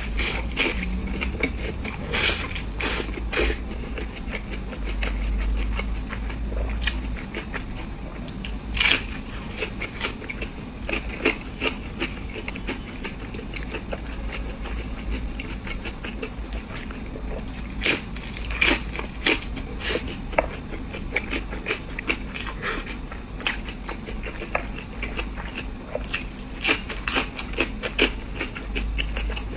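Close-miked eating: biting and chewing food, with irregular sharp crunchy clicks and mouth sounds, bunched into a few louder bouts.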